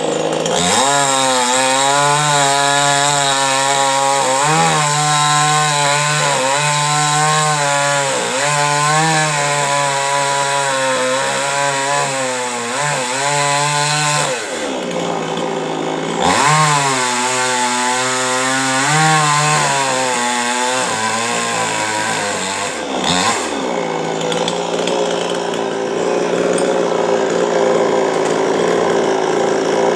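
Chainsaw cutting into a coconut palm trunk, its engine pitch rising and sagging as it works under load. The pitch drops away briefly about halfway through and again a little after two-thirds in, then the saw settles into a steadier, even sound.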